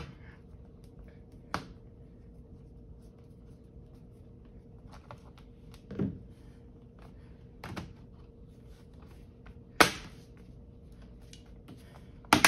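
Scattered sharp clicks and soft taps from a laptop's bottom cover being handled and pressed down to snap its plastic clips into place, the loudest click about ten seconds in and another near the end.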